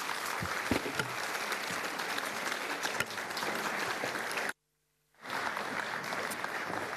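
Audience applauding steadily; the sound cuts out completely for about half a second past the middle, then the applause resumes.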